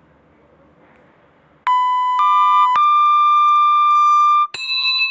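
Electronic tone sound effect played from a phone app: after a faint start, a loud held beep-like note begins about a second and a half in and steps through slightly different pitches around 1 kHz. It breaks briefly near the end and resumes as a new note with a brighter timbre.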